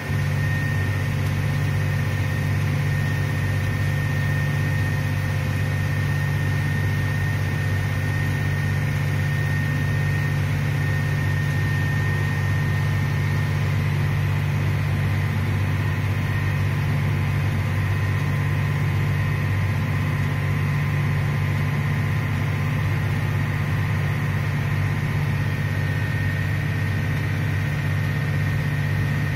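Large farm tractor's engine running steadily, heard from inside the closed cab: a constant low drone with a steady high tone on top.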